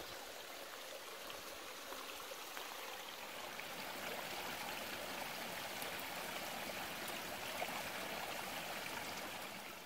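A small babbling brook: shallow water running and trickling over stones in a steady rush. It grows a little louder through the middle and eases slightly near the end.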